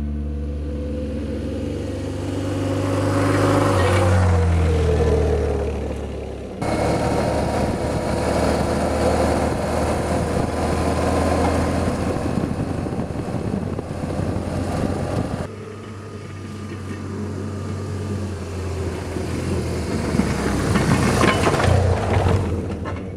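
A motorcycle engine comes closer and goes past, its pitch falling as it passes. After a sudden cut comes the steady engine and wind noise of riding on a motorcycle. Then another stretch of engine noise grows louder toward the end.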